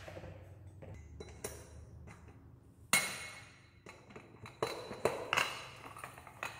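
Metal knocks and clinks from a steel axle with welded brackets and rubber-tyred wheels being handled and set down on a tile floor. One louder ringing knock comes about three seconds in, then a run of sharper clinks near the end.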